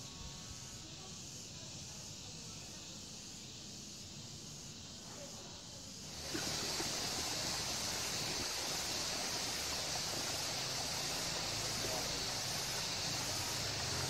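Outdoor nature ambience: a steady high-pitched insect chorus over a soft hiss, which turns much louder at a cut about six seconds in.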